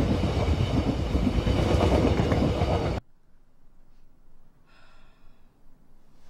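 A train passing close by, the loud rumble and rattle of its cars, cut off abruptly about three seconds in. After the cut there is only a faint hush, with one soft short sound just before the five-second mark.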